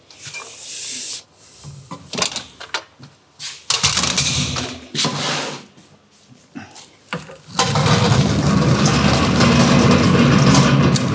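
Scattered knocks and rustles of work on the truck, then, about two-thirds of the way in, a truck tail lift's hydraulic pump motor comes on abruptly and runs steadily with a low hum as the lift is worked to lower a pallet.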